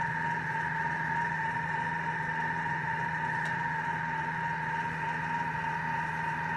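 Thermomix motor running steadily as it cooks the jackfruit mixture, a constant hum with a steady whine, and one faint click about three and a half seconds in.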